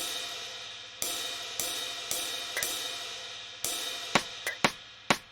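Drum kit: crash cymbals struck about six times, each strike ringing out and slowly fading. From about four seconds in, short sharp percussion hits come roughly every half second.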